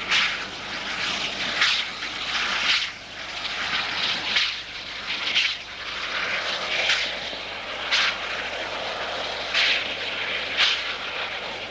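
U47 Mallet narrow-gauge steam locomotive working a train, its exhaust beating in sharp chuffs roughly once a second, unevenly spaced, over a steady running noise.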